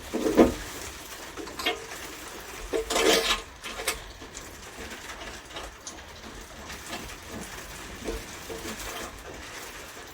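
Metal tools and bolts clinking and clattering during work on a wood chipper, loudest about three seconds in, then lighter ticks. Underneath runs a steady hiss of heavy rain.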